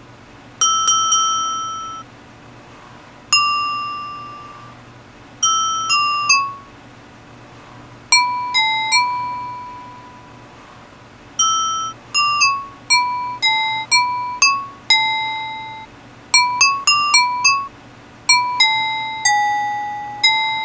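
Wine glasses holding different amounts of liquid, tuned to different pitches, struck one at a time with a metal utensil. Each gives a clear ringing note that fades away, and the notes make a slow melody that picks up pace about halfway through.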